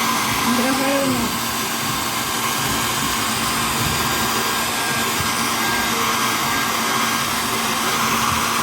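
A low-powered hair dryer running steadily, blowing on a doll's hair, with a steady hum and a thin whine over the rush of air.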